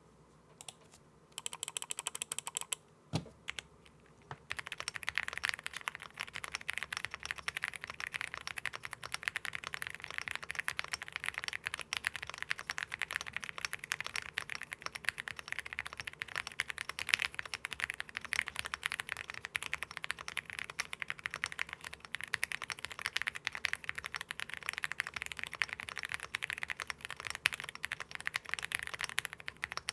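Mechanical keyboard with Akko Bittersweet tactile switches in a fully foamed Akko M1 V5, typed on fast and without pause: a quiet, deep thock on each keystroke. Typing runs steadily from about four seconds in, after a brief flurry of keypresses and a single knock.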